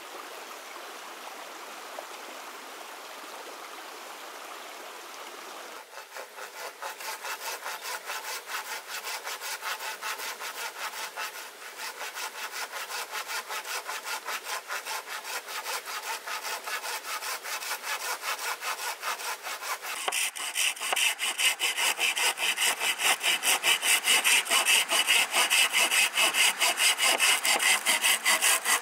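A stream flowing, then a hand saw cutting through a green bamboo pole in quick, even back-and-forth strokes, several a second. The sawing starts about six seconds in and gets louder and brighter about twenty seconds in.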